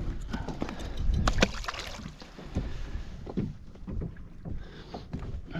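Scattered small clicks, knocks and rustles of hands working a lure and fishing line free from where it is tangled in a kayak's mesh seat, over a low wind rumble on the microphone.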